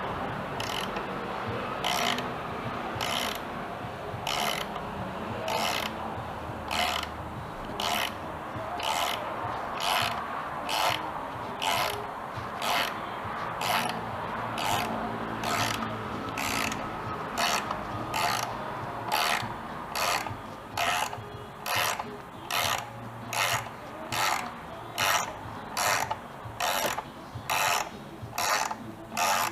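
Hand ratchet wrench worked back and forth on a bolt, giving a short burst of clicking on each swing. The strokes come about once a second at first and quicken to nearly two a second near the end.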